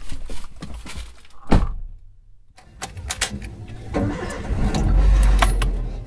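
Getting into a car and starting it: a door shuts with a thunk about a second and a half in, keys rattle, then the engine starts about four seconds in and runs, loudest near the end as it settles toward idle.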